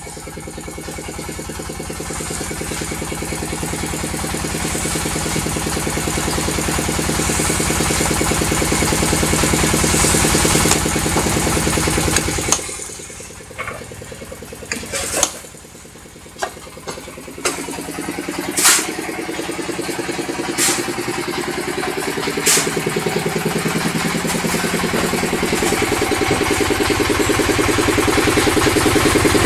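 Concrete-block press running, its vibrator motor humming steadily as it shakes the mould to compact the concrete. The motor stops about twelve seconds in, a few sharp metal knocks from the press and mould follow, and the motor starts up again a few seconds later.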